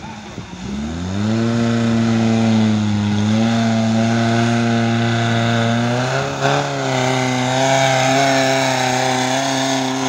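Off-road vehicle engine revving up about a second in and then held at high revs with a steady note, with a brief dip and surge past the middle.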